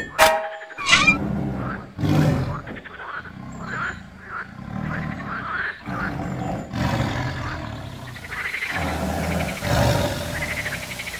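A tiger growling again and again in deep, rough calls. It opens with a sharp impact that rings briefly.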